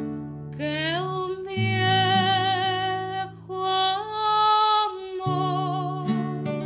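A woman singing long held notes with vibrato over strummed acoustic guitars.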